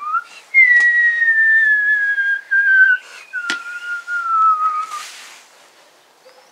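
A man whistling one long, slowly falling tone, the cartoon sound effect of something dropping from a height. It ends about five seconds in with a short burst of noise, and two sharp clicks come along the way.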